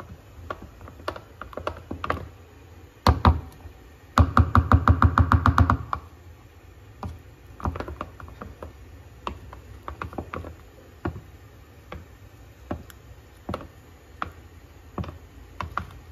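A spoon clicking and knocking against a glass while flour is whisked into water to break up the lumps. Two loud knocks come about three seconds in, then a quick run of about a dozen fast strokes.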